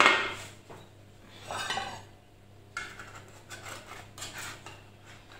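Metal spatula and knife scraping and clinking against a baking tray, with a loud scrape right at the start, another about a second and a half in, then lighter clicks and scrapes.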